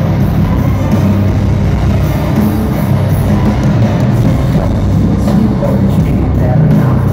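Industrial metal band playing live through a stadium sound system, heard from the stands in a phone recording: loud and continuous, dominated by a heavy, booming low end.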